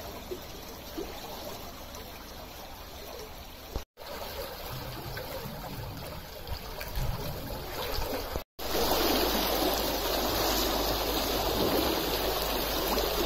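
Water rushing and churning in a canal lock chamber while the lock's paddles are open. There are two brief silent breaks, and the sound is louder after the second one, about eight and a half seconds in.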